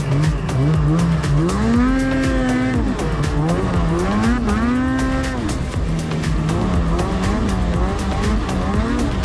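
Snowmobile engine revving as the sled rides a snowy trail, heard from the rider's seat: the engine note climbs and falls back twice in the first few seconds, then holds fairly steady with small surges.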